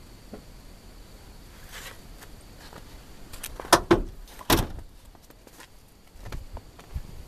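A few sharp clunks against an old car's steel bodywork as its door is handled. The loudest two come about four and four and a half seconds in, with fainter knocks after.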